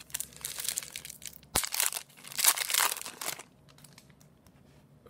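Plastic wrapper of a trading-card pack crinkling and rustling as hands work it open and pull the cards out, with one sharp snap about a second and a half in. The handling dies down after about three and a half seconds.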